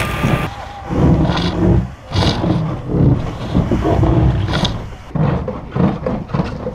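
A heavy wooden arch form scraping and grinding against the ice blocks of an ice arch as it is worked loose, an uneven low rumble with a few sharp scrapes.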